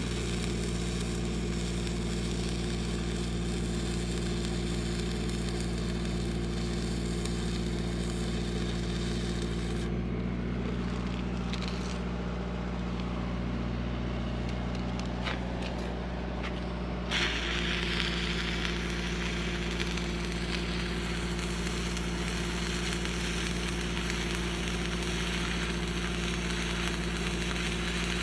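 Stick-welding arc crackling and sizzling as a 7014 rod burns, over the steady drone of a Lincoln SAE 300 engine-driven welder. The arc stops about ten seconds in, leaving the engine with a few faint clicks, and is struck again about seventeen seconds in.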